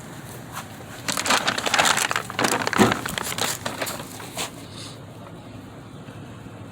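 A burst of crinkling, rustling crackles that starts about a second in, runs for roughly three seconds and then dies away.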